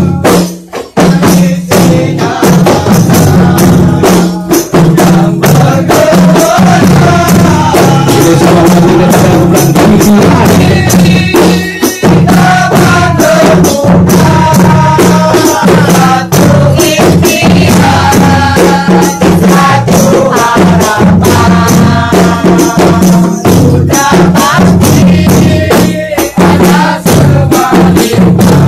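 Kompang, Malay hand-beaten frame drums, played by a troupe in a fast interlocking rhythm, with voices singing a melody over the drumming from about six seconds in.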